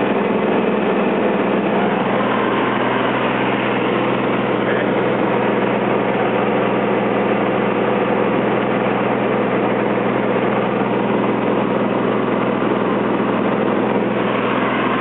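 Piper PA-24-250 Comanche's six-cylinder Lycoming O-540 engine and propeller running steadily, an even drone that holds one pitch.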